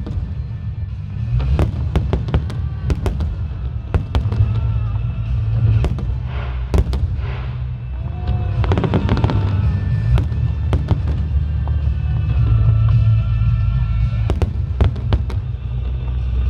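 Fireworks display: aerial shells bursting in a rapid series of bangs and crackles, over loud music with heavy bass.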